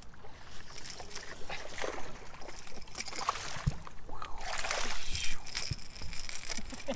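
Water splashing and sloshing as a hooked smallmouth bass thrashes at the surface and is swung up out of the water. The biggest splash comes about four and a half seconds in.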